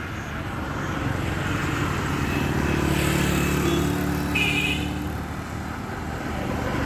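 A car passing on the road: its engine and tyre noise swell, peak about halfway through and fade away, with a brief high chirp just after the peak.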